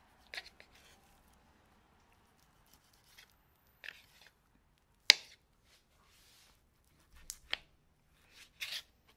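Boning knife cutting and scraping through fat on raw beef, with the blade tapping the plastic cutting board: a handful of short, scattered cuts and taps, the loudest a sharp click about five seconds in.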